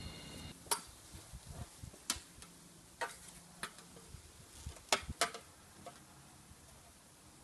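Six or so light, sharp clicks and knocks, a close pair of them about five seconds in, as a long spirit level is handled and laid across the strut towers above the intercooler.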